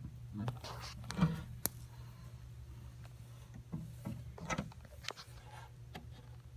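Scattered scuffs, scrapes and clicks as a savannah monitor shakes and drags a white rodent in its jaws over loose terrarium substrate, over a low steady hum.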